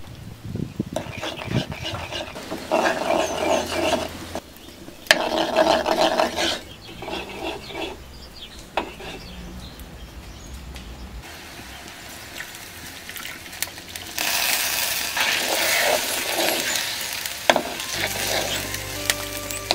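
Cooking sounds at a clay-pot hearth: oil poured into a pan, then a coconut-shell ladle stirring and clinking in a clay pan of oil, with a hissing sizzle of hot oil in the later part. Background music comes in near the end.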